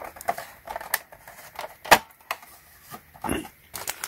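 Hard plastic clicking and knocking as the hopper lid of a NERF Rival Perses MXIX-5000 blaster is worked open by hand, with one sharp snap about two seconds in.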